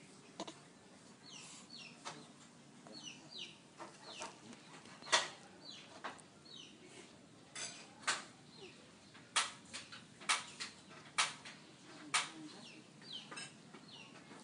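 Birds chirping in the background in short falling notes, mixed with a series of sharp clicks and taps. The loudest clicks come about a third of the way in and then roughly once a second later on.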